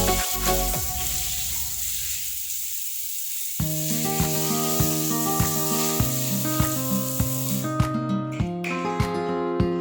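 Background music over a steady hiss: the first piece fades out, then plucked guitar music comes in about three and a half seconds in, and the hiss cuts off suddenly near the end.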